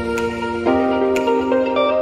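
Background music of plucked-string notes over held tones, with a short tick about once a second.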